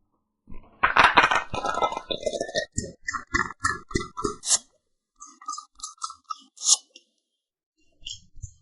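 Glass cupping cups clinking and knocking together: a quick, dense run of clicks with short glassy rings, then separate knocks about four or five a second, and sharper high clicks after the middle.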